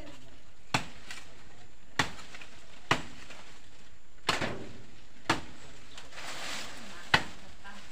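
A blade chopping into a tree trunk: six sharp, woody strikes at uneven intervals of about a second, one of them a quick double hit.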